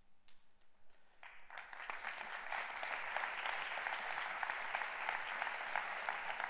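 Audience applauding: a few scattered claps, then applause from the whole crowd breaks out about a second in, builds quickly and holds steady.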